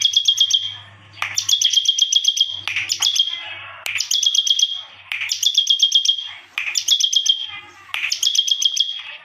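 Bar-winged prinia (ciblek) singing hard, repeating a short phrase of rapid high chirps, about ten notes a second, roughly every second and a half, about seven phrases in all.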